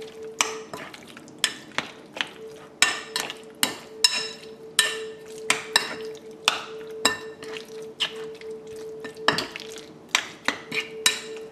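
Bare hands mixing chicken pieces in a wet marinade in a mixing bowl: irregular squelches and sharp clacks against the bowl, about two a second, over a faint steady hum.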